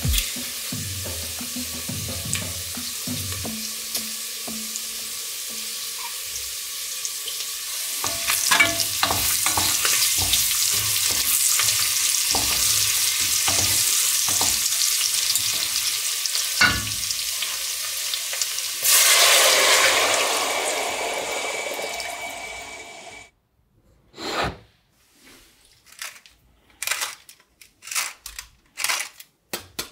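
Diced potatoes and bacon sizzling in lard in a stainless steel pot, with the knocks and scrapes of a wooden spoon stirring them. About two-thirds of the way through, a sudden louder rush of hissing, typical of broth poured into the hot pot, fades away. Near the end come short separate crunching bursts of a pepper mill grinding.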